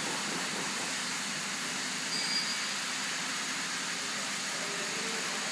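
Steady background noise, like a running machine or distant traffic, with a faint short high tone about two seconds in.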